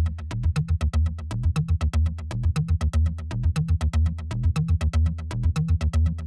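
Electronic background music with a fast, steady beat over a repeating bass line.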